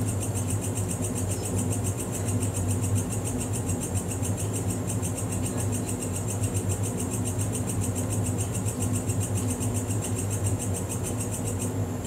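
A steady low hum with a fast, even, high-pitched chirping pulse running through it, like insects chirping.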